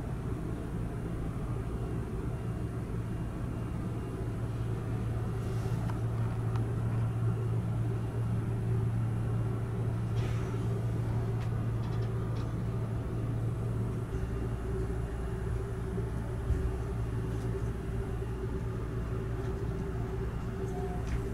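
Steady low hum inside a stationary Seibu 001 series Laview express car, with a few faint clicks and a short soft thump about sixteen seconds in.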